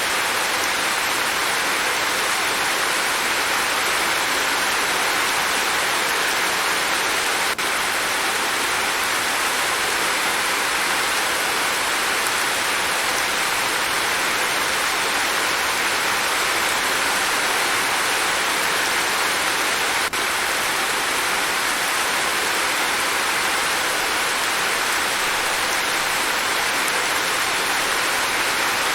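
Steady rain falling, an even, unbroken hiss, with two very brief dips in level.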